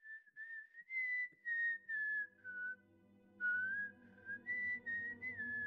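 A person whistling a slow tune in short phrases, the notes sliding into one another. A low, steady drone comes in underneath about a second in.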